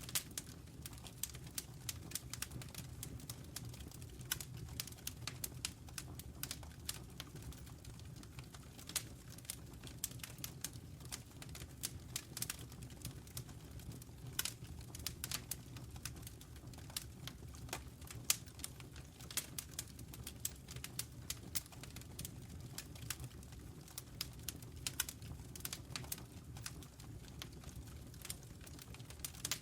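Wood fire crackling in a fireplace: many irregular sharp pops and snaps over a steady low rumble of the flames.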